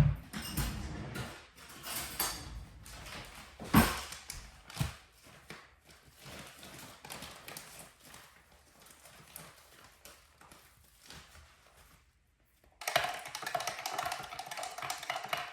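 Household handling noises: a heavy thump at the start, then scattered knocks and clatter, with two sharper knocks about four and five seconds in. After a brief break, a steady mechanical whir with a humming tone runs through the last couple of seconds.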